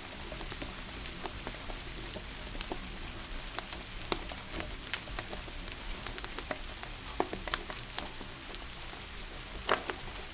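Steady rain mixed with the irregular crackling and popping of a wood fire, with one louder pop near the end.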